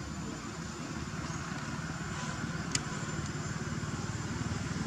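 A motor vehicle engine running with a low, pulsing rumble that grows gradually louder, and a single sharp click a little past halfway.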